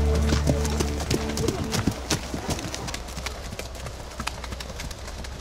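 Hooves of several horses clip-clopping at a walk on a dirt forest track, a loose run of uneven hoof strikes. Background music fades out about two seconds in.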